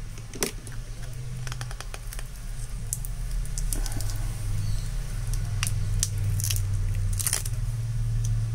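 Adhesive pull strips under an iPhone 8 Plus battery being pulled and peeled away, crackling with scattered sharp ticks, over a steady low hum.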